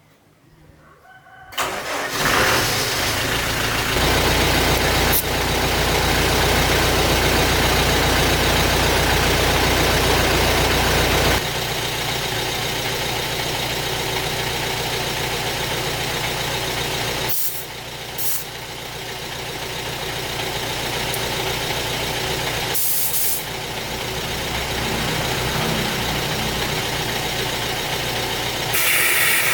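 Toyota Fortuner's engine starting up, running at a raised speed for several seconds, then dropping to a steady idle about eleven seconds in.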